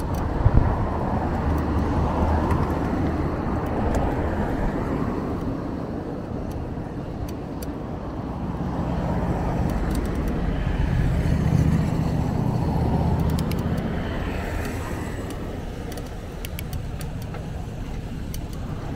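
Road traffic: a motor vehicle's engine hum over steady road noise, growing louder about nine seconds in and fading again after about fourteen seconds, as a car passes.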